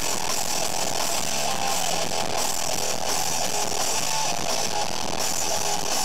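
Hardcore punk band playing live: loud, heavily distorted electric guitar and bass, a dense wall of sound without vocals.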